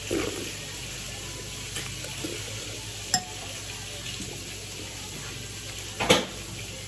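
Person eating with a metal spoon: a faint clink of the spoon on the dish about three seconds in and a short louder noise near the end, over a steady low hiss.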